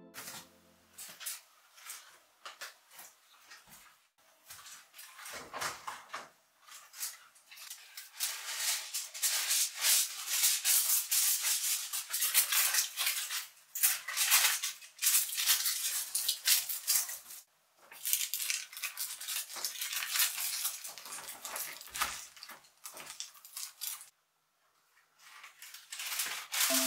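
Kitchen preparation sounds: bursts of rapid rattling and clinking from utensils and containers being handled, broken by short pauses.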